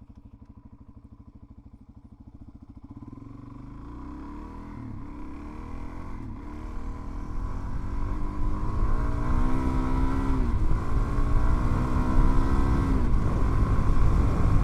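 Suzuki DR-Z400's single-cylinder four-stroke engine turning over at low revs, then pulling away and getting steadily louder from about three seconds in. Its pitch climbs and falls back twice near the end. Rushing noise from the tyres on loose gravel builds as speed picks up.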